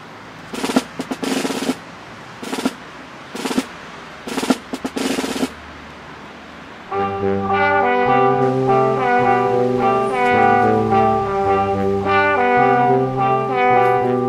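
Background music: short bursts like drum rolls for the first five seconds or so, then from about seven seconds in a louder, jaunty brass-led tune over a bouncing bass line.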